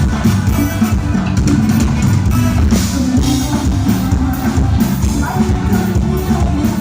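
Loud music with a heavy bass line and a steady beat.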